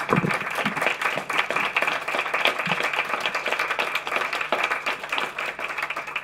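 Audience applauding: many people clapping at once in a steady patter.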